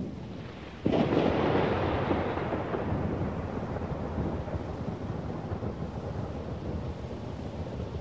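Thunder: a sudden sharp clap about a second in, then a long rumble that slowly fades over several seconds, over steady rain.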